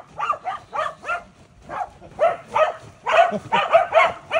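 Welsh corgis barking repeatedly in short, high barks, about three a second, coming closer together near the end.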